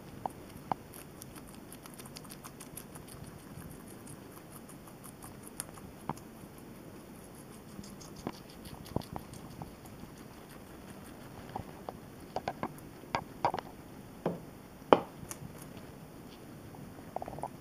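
Guinea pigs chewing and nibbling lettuce and cauliflower: a fast run of fine crunching clicks, then sparser, louder sharp crunches in the second half, the loudest about fifteen seconds in.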